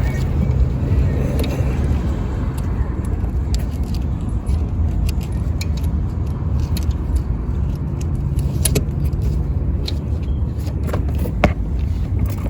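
A steady low motor hum with scattered light clicks and metallic rattles.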